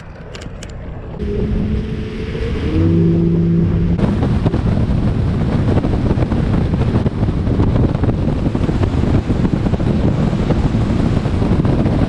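Bass boat's outboard motor powering up and running at speed: engine tones change pitch in the first few seconds. From about four seconds in, loud wind rushing over the microphone drowns them.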